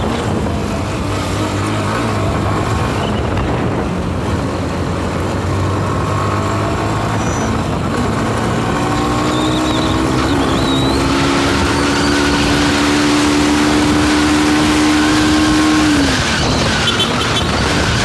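Road and wind noise from a moving vehicle, with its engine running under it. The engine note rises slightly from about nine seconds in, holds, and drops away about sixteen seconds in.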